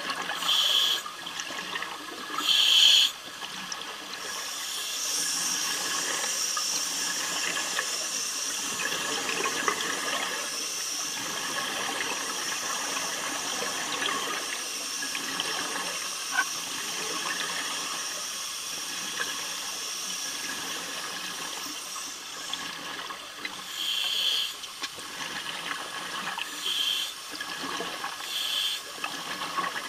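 Underwater breathing of a helmeted commercial diver: loud rushing bursts of exhaled bubbles a couple of seconds apart near the start and again near the end, with a steady watery hiss in between.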